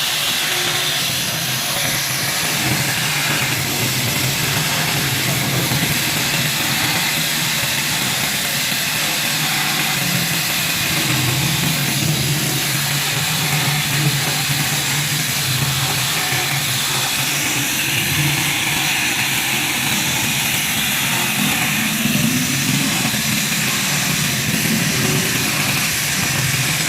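A power tool running steadily with a strong hiss and an even level throughout.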